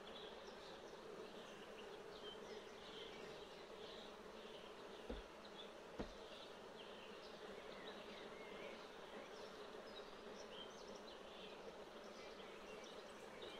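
Honeybees buzzing steadily over an open hive, with single bees whizzing past. Two short sharp knocks about five and six seconds in, a hive tool against the wooden frames.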